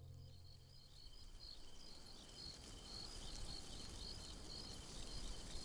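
Crickets chirping: a steady run of short, high, evenly repeated chirps over faint evening background hiss, with the tail of soft music fading out in the first second.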